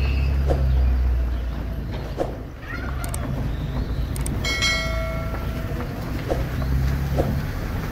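Wind rumbling on the camera microphone. About four and a half seconds in, a short, steady high tone with overtones sounds for under a second.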